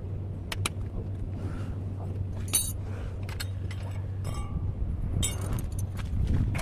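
Scattered light metallic clinks and taps, the sharpest about two and a half seconds in, over a steady low hum.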